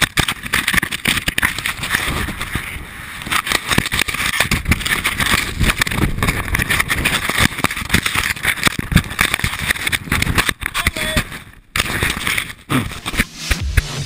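Deep powder snow rushing and scraping over a body-worn action camera as a snowshoer plunges down a steep slope: a dense, continuous rustling crunch with many small knocks, dropping out briefly near the end.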